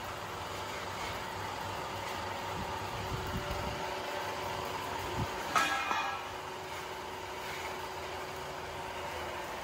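Hydraulic press machinery running with a steady hum, a few dull thuds, and one sharp metallic clank that rings briefly about five and a half seconds in.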